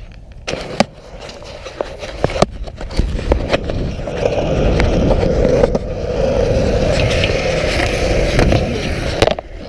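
Skateboard wheels rolling over rough concrete, a steady rumble that builds from about three seconds in and stops abruptly just before the end, with sharp clicks and knocks in the first few seconds.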